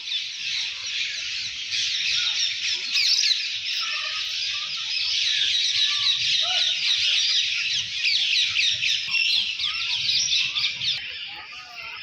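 A flock of small birds chirping and chattering together in a dense, continuous chorus, easing off a little near the end.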